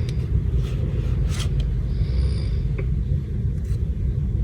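Steady low rumble, with a few light clicks and brief rustles of trading cards being handled.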